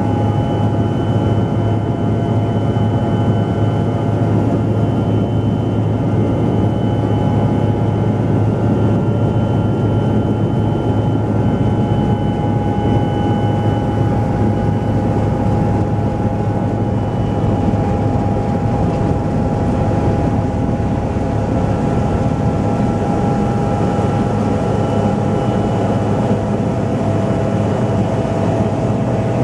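Cabin noise of a Sikorsky S-61N helicopter descending to land: a steady low drone from the main rotor and twin General Electric CT58 turboshaft engines, with several steady whining tones above it, heard from inside the cabin. The pitch of the drone shifts slightly near the end.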